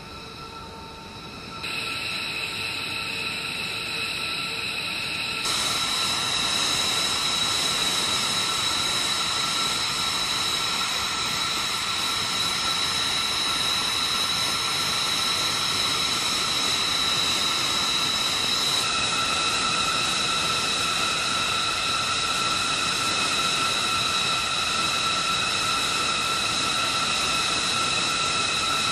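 Jet engines of a B-2 Spirit running at idle on the ramp: a steady rushing roar with a high turbine whine, stepping louder twice in the first six seconds and then holding steady.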